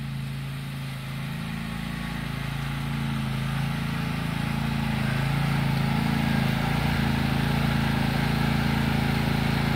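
Riding lawn mower engine running steadily, growing gradually louder as the mower comes back toward the listener.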